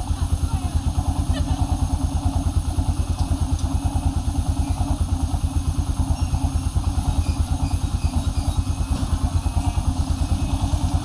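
Motorcycle engine running steadily while riding, a rapid, even low throb with no change in pace.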